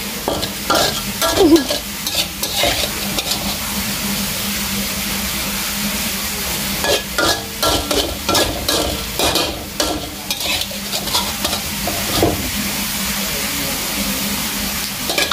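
Hot wok sizzling with a steady hiss, with scattered short clicks and scrapes, most in the first few seconds and again around the middle.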